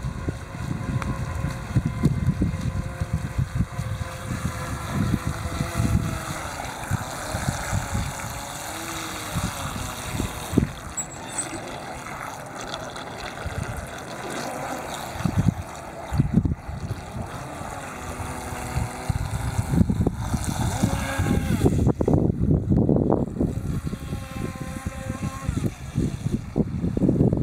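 Electric motor of a FeiLun FT009 RC racing boat whining as it speeds across the water, the whine rising and falling in pitch with the throttle. Gusts of wind rumble on the microphone.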